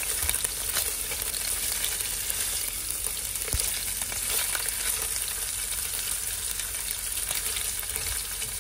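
Sliced sausage sizzling in hot olive oil in a saucepan: a steady hiss with scattered small pops and crackles. A silicone spatula stirs and turns the pieces in the pan.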